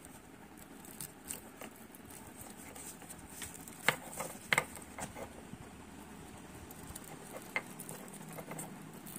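Faint rubbing and small clicks from fingers handling a plastic Speakon cable connector and its wires, with a few sharper clicks about four seconds in and again near seven and a half seconds.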